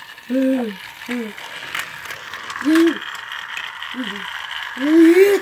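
Motorized Thomas toy engine whirring steadily as it runs along the plastic track and into the volcano piece. Over it are five short wordless vocal sounds from a person, the loudest near the end.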